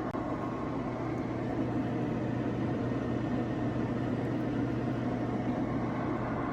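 Steady low hum under an even hiss, unchanging throughout, like a running appliance, fan or engine.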